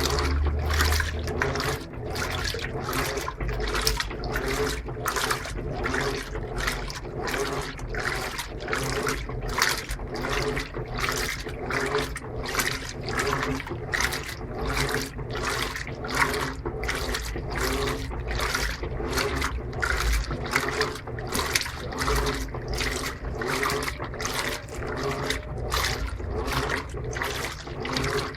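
Electrolux LTP15 top-load washing machine agitating its wash load in water: rhythmic sloshing, about two swishes a second, as the agitator turns back and forth, over a steady low motor hum.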